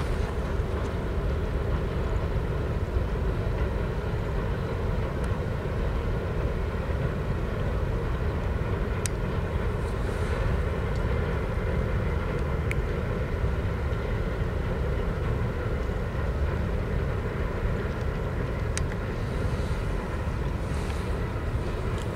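Freight train rolling across a trestle bridge: a steady, even rumble of freight cars on the rails, with three brief sharp clicks along the way.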